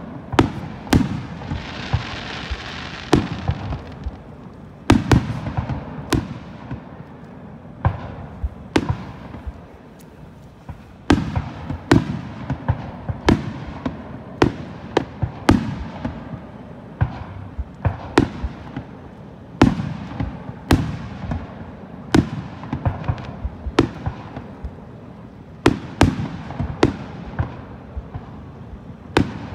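Aerial firework shells bursting in quick succession, a sharp bang every second or so, each trailing off. A stretch of hiss about a second in.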